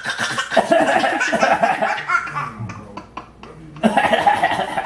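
Laughter in two bursts: one of about two and a half seconds at the start, and a shorter one near the end.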